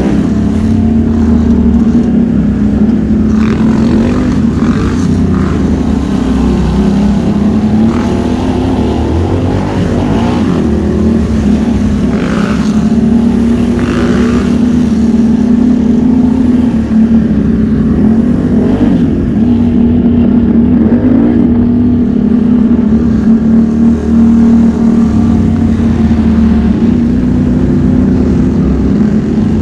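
ATV engine running at a fairly steady pitch while riding along a trail.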